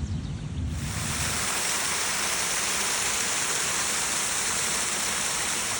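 Steady rush of water, an even hiss that cuts in sharply about a second in, as the low end of orchestral music with timpani ends.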